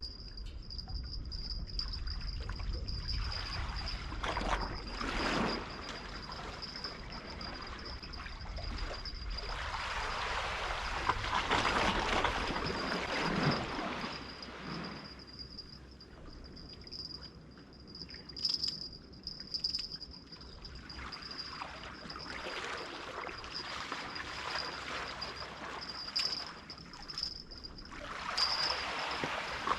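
Water sloshing and lapping in slow surges that swell and fade every few seconds, with a faint steady high-pitched tone underneath.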